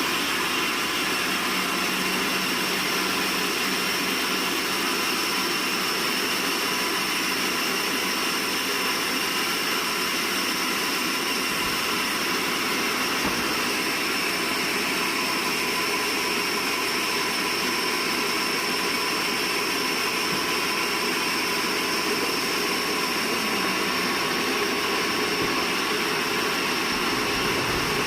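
Sawmill machinery running steadily: a constant rushing noise with a thin high whine over it.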